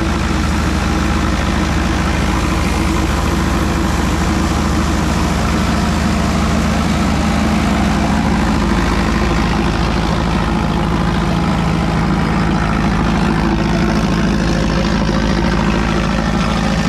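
Tractor-powered Haramba thresher running steadily: the tractor engine turning the threshing drum and blower as a constant hum, with a continuous rushing of chopped straw being blown out.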